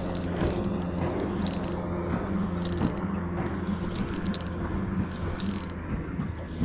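Spinning reel being worked against a hooked small jewfish (mulloway): short bursts of ratcheting clicks from the reel come and go through the fight. Under them runs a steady low hum, most likely the boat's motor.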